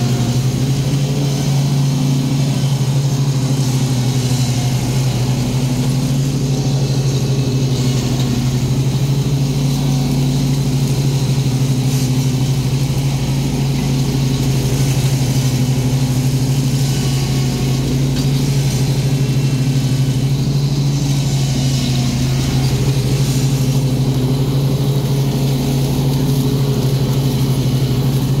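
Stand-on commercial lawn mower's engine running steadily at mowing speed while cutting grass, a constant loud hum that barely changes.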